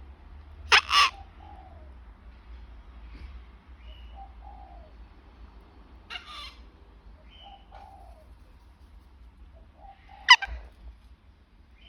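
Sulphur-crested cockatoo giving short, harsh screeching calls: a double call about a second in, a weaker one around the middle and the loudest near the end, with faint soft sounds in between.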